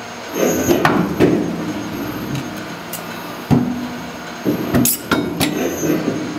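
SEYI servo stamping press and its blanking die working as the ram travels and the tool opens, with a steady machine hum and a few sharp metallic knocks and clunks from the tooling, about half a second, a second, three and a half and five seconds in.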